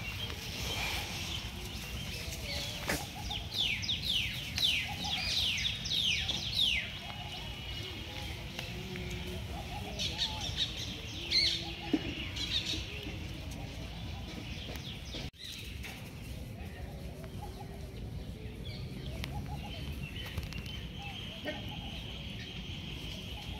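Birds chirping in runs of quick, falling notes, over a low steady rumble.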